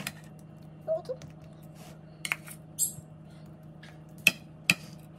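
A metal utensil clinking and scraping against a dish while masala is spread over raw chicken pieces: several sharp clinks, the two loudest about four and four and a half seconds in. A steady low hum runs underneath.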